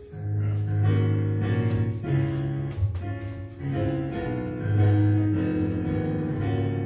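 Instrumental church music: keyboard chords held over a strong bass line that moves from note to note every second or so.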